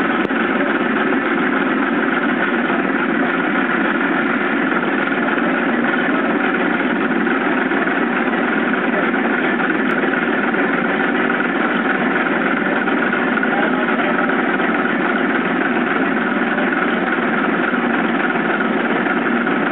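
250 lb Nazel self-contained air hammer running idle, its built-in compressor making a steady mechanical noise with no blows struck.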